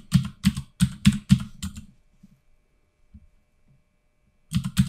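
Typing on a computer keyboard: a quick run of keystrokes, then a pause of about two and a half seconds with a few faint taps, then typing starts again near the end.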